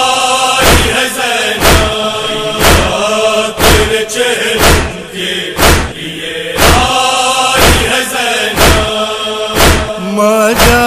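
Voices chanting the refrain of an Urdu nauha, a Shia lament, over steady chest-beating (matam), about one beat a second.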